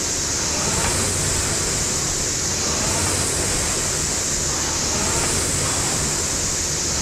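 Air-resistance rowing machine's fan flywheel whooshing, swelling and fading with each stroke about every two seconds, over a low steady hum.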